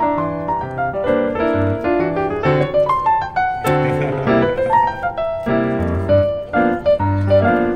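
Background piano music: a melody over chords and bass notes.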